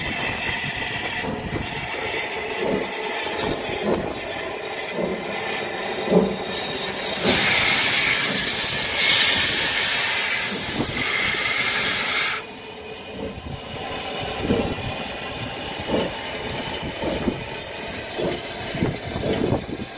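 Narrow-gauge steam tank locomotive Lyd standing with steam up: a loud, steady hiss of escaping steam for about five seconds in the middle, which cuts off suddenly. Before and after it, a quieter background with scattered short knocks.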